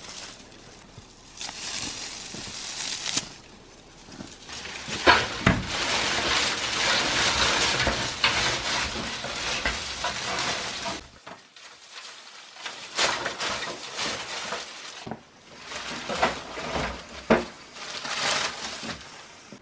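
Dry leafy branches and twigs rustling and crackling in bursts as they are snapped off, handled and piled onto a stove, with sharp snaps of twigs among them.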